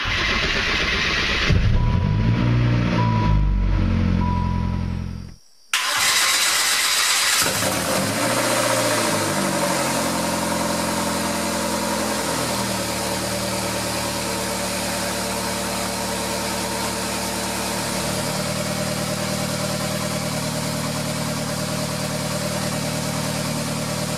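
A freshly rebuilt Saturn S-Series 1.9-litre DOHC four-cylinder starting for the first time: it catches about a second and a half in and its revs swing up and down. After a break it runs loud with no exhaust system fitted, so it is heard straight from the exhaust manifold, and its revs drop over several seconds to a steady idle.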